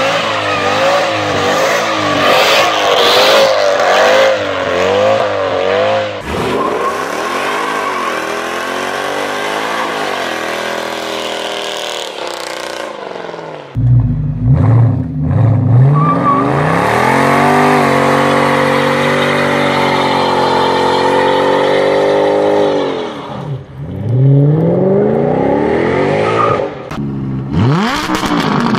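Mercedes W211 E-Class AMG V8 doing a burnout, its revs wavering up and down rapidly as the rear tyres spin, then rising and falling more slowly. About fourteen seconds in, a deeper Mercedes W221 S-Class exhaust follows, revved hard several times, each rev rising, holding and dropping away.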